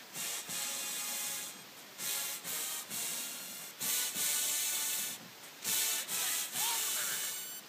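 Marching band brass section, sousaphones and horns, playing loud short blasts with brief gaps between them, about six in all.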